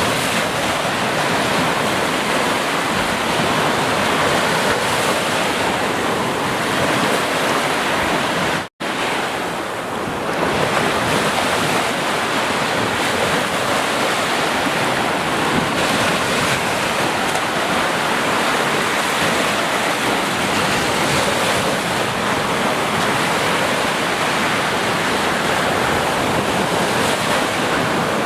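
Ocean surf: a steady, dense wash of breaking waves, which cuts out for an instant about nine seconds in and then resumes.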